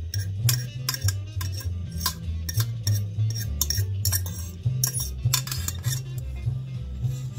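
Background music with a stepping bass line, with sharp metal clinks of a stainless steel pot and utensil as cooked noodles are tipped out onto a ceramic plate.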